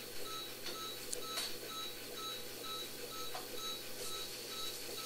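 Veterinary vital signs monitor beeping in time with an anaesthetised cat's pulse, about two short beeps a second, matching its heart rate of roughly 125–130 beats a minute. A few faint clicks from surgical instruments during suturing.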